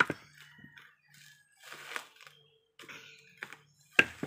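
Dried, husked coconuts knocking hard against each other as they are handled and tossed onto a pile: a loud hollow knock at the start and another about four seconds in, with lighter knocks between.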